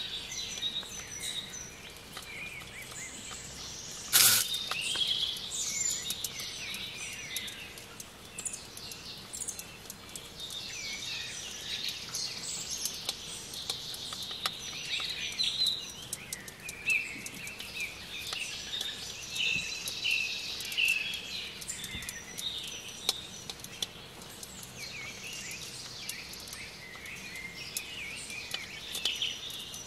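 Several songbirds chirping and singing in short, overlapping phrases, with one sharp knock about four seconds in.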